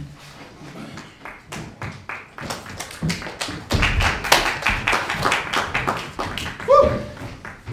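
Small audience clapping, scattered at first and fuller from about three seconds in, with a short vocal whoop near the end.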